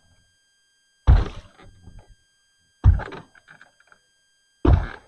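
Three heavy thunks about two seconds apart, each dying away within a second.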